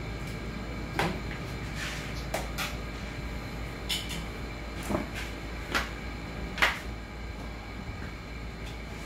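Several short, sharp clicks and knocks at irregular intervals as welding cables, an electrode holder and a ground clamp are handled and set down on a concrete floor, over a steady low hum.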